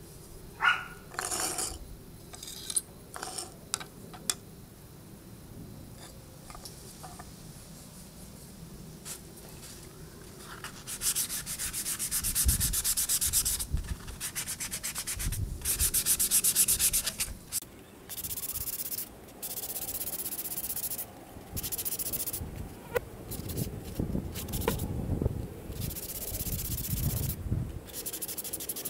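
Hand sanding of small wooden craft pieces with a flexible sanding block, in quick back-and-forth strokes. A few light clicks and knocks come first; the sanding starts about eleven seconds in and goes on in spurts of rapid rubbing with short pauses.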